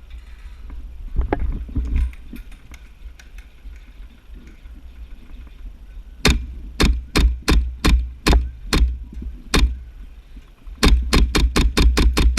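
Gas blowback MP7 airsoft gun firing sharp single shots, about eight spaced a fraction of a second apart, then a faster string of about eight more in quick succession near the end. A few dull low thumps come about a second in.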